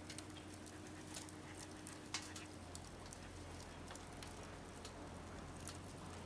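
Firewood burning in a secondary-combustion fire stand: faint, irregular crackles and pops over a steady hiss, with one sharper pop about two seconds in.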